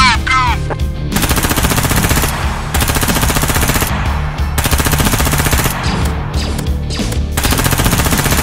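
Dubbed machine-gun sound effect firing rapidly in four or five bursts of about a second each, with short gaps between them. A couple of short high chirps come right at the start.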